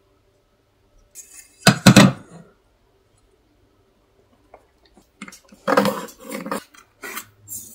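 A tape measure and steel rulers handled on a wooden picture frame on a workbench. There is a short metallic rattle about two seconds in, then a run of clinks and knocks over the last few seconds as the steel ruler and square are set down and shifted.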